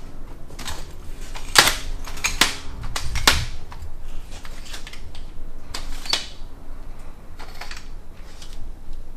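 Irregular sharp clicks and knocks from work at the back of the vehicle. The loudest cluster comes about one and a half to three and a half seconds in, with another knock around six seconds in.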